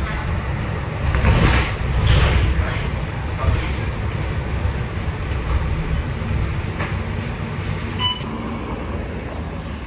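MAN NL323F city bus's diesel engine and road noise heard from inside the cabin while under way, a steady low rumble with louder surges of noise about one and two seconds in. A short electronic beep sounds near eight seconds.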